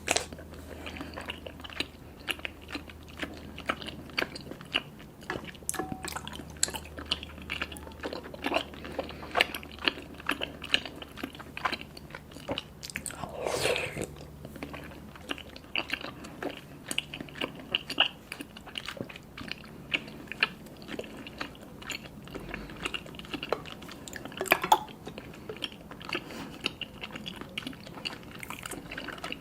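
Close-miked chewing of sticky, chewy black tapioca pearls (boba): a steady stream of wet, irregular mouth clicks and smacks, with one longer noisy sound near the middle.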